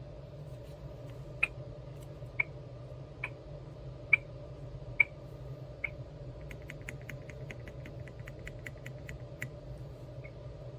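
A bubble-blowing penguin fidget toy being squeezed and played with. Six short, sharp squeaks come about a second apart, then a quicker run of fainter clicks for a few seconds. A steady low hum sits underneath.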